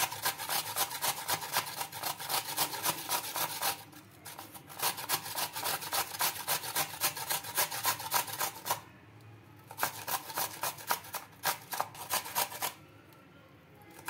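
Fresh coconut flesh grated on a metal grater resting on a wooden board: rapid, rhythmic rasping strokes, several a second, broken by three short pauses.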